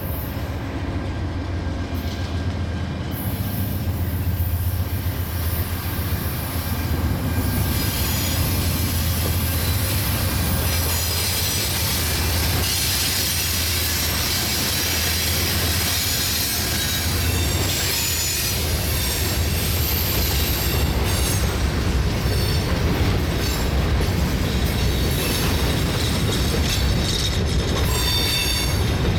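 Freight train passing: Norfolk Southern #4000, a locomotive converted from DC to AC traction, and a second diesel locomotive run steadily as they approach and go by, growing louder over the first several seconds. Covered hopper cars then roll past, steel wheels squealing on the rails.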